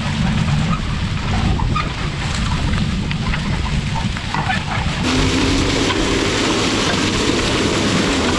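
Farm tractor engine running, with low rumble and scattered rattles and knocks. About five seconds in, the sound changes abruptly to a steadier engine drone with a wide hiss over it.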